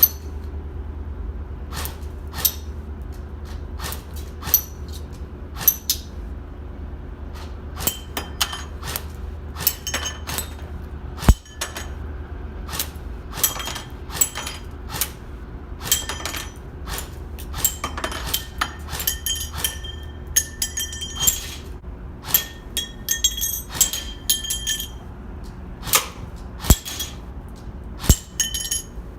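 Airsoft gun fired in irregular single shots and short strings, each BB striking the target with a sharp click and a brief ringing clink, over a steady low hum.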